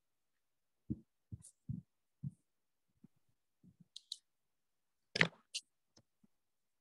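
Scattered faint clicks and soft knocks, about a dozen in all, with one louder sharp click a little after five seconds in.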